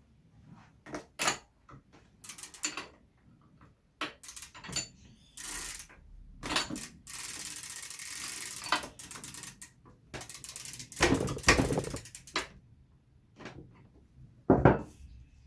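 Metal tool and bike-part clicks and clanks while working on a bicycle pedal, with a run of rapid ratchet-like ticking about ten seconds in.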